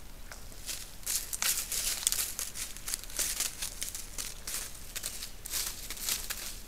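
A white-tailed buck close by, crunching acorns and moving through dry fallen leaves: a dense, irregular run of sharp crackles and rustles that starts about a second in and dies away near the end.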